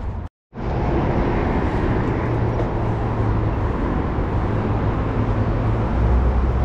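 Steady rushing wind noise on the camera microphone while riding a bicycle, heavy in the low rumble. It cuts out completely for a split second just after the start, then resumes.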